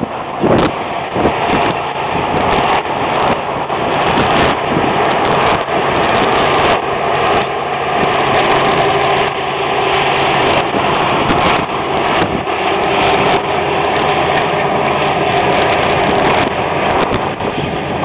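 International Harvester 1460 axial-flow combine running under load while harvesting wheat: a steady engine and threshing-machinery drone.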